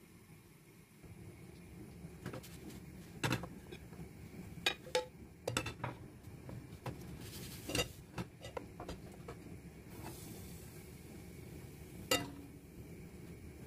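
Kitchen utensil clatter: a metal ladle clinking and tapping against a glass mixing bowl and a nonstick crepe pan as batter is ladled into the pan. There is a quick run of sharp clicks, then one last sharp tap near the end.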